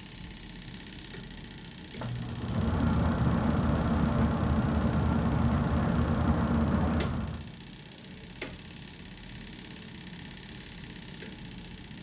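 Twin-tub washing machine's wash-tub pulsator motor running with a steady hum for about five seconds, with a click as it starts and stops, then still for several seconds before the next run. The tub is empty, so this is the bare wash-cycle motor turning the pulsator dry.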